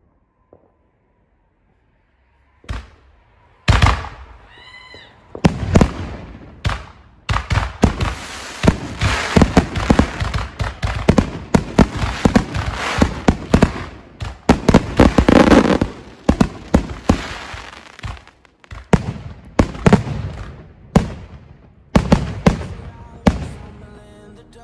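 Fireworks display firing: after a nearly quiet start, a dense barrage of sharp bangs and crackling bursts in quick succession, with a brief wavering whistle about four seconds in.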